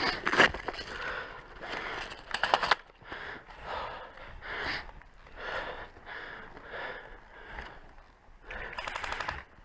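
Ratcheting clicks of a high-capacity airsoft magazine's winding wheel being wound, in quick spurts at the start, about two and a half seconds in and near the end. Between the spurts there is heavy breathing about once a second.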